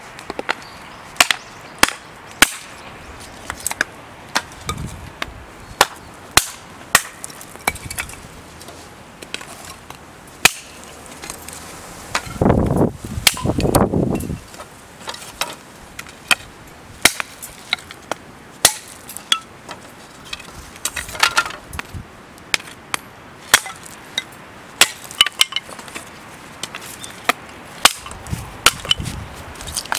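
Repeated sharp chopping or striking blows at an irregular pace of roughly one a second. About halfway through comes a louder scraping or rustling noise lasting about two seconds.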